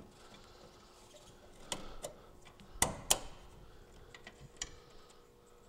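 A plastic Molex wiring connector being plugged together and wires pushed into a metal electrical junction box: a few light clicks and taps, the two sharpest a little after halfway.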